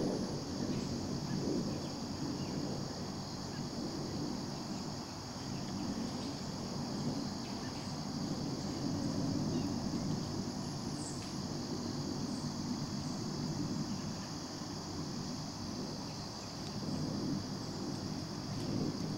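Steady chorus of crickets, a constant high-pitched trill, with a low, uneven rumble underneath.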